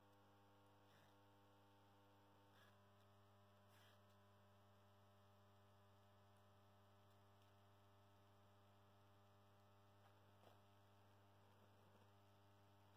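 Faint steady mains hum from a burning Tesla SHLP 210 W high-pressure sodium lamp run on three 70 W ballasts. A few faint ticks come through now and then.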